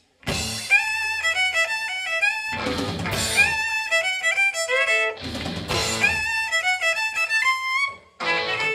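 Live country band kicking in with a fast fiddle lead over electric guitars, bass and drums, with loud full-band accents about every two and a half seconds. The band drops out briefly about eight seconds in, then comes back in.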